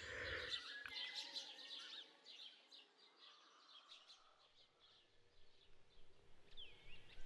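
Faint bird chirps from an outdoor ambience. They fade out over the first two seconds, leaving near silence, and a few faint chirps return near the end.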